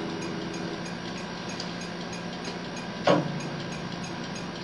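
A pause in the playing: the nylon-string acoustic guitar's last notes ring out and fade within the first second. Then a faint room hum remains with light regular ticking, and a short handling bump comes about three seconds in as the phone is moved.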